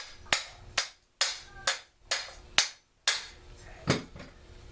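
Hammer blows on a part of an old Homelite chainsaw during teardown: about nine sharp strikes at roughly two a second, the last one after a short pause.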